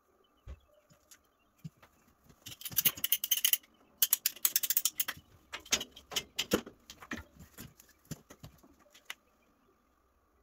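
Hard plastic pipe fittings handled and fitted by hand: two dense runs of rattling and clicking, then scattered single clicks that die away toward the end.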